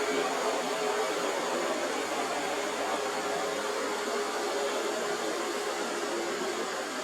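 Combine harvester running steadily at work, a continuous machine noise with a faint steady hum.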